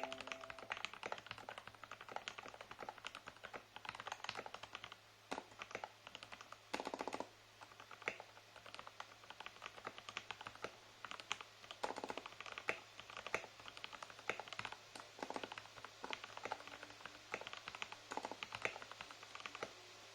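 Typing on a custom 60% mechanical keyboard with lubed Gateron Black KS-3 linear switches, a polycarbonate plate and a frosted acrylic case: a fast, irregular run of keystrokes with brief pauses.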